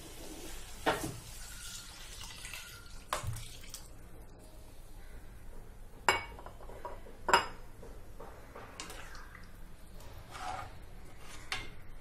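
Metal utensils clinking against a steel cooking pot: several sharp, separate clinks, the loudest about seven seconds in, as the chole curry is worked in the pot after water goes in.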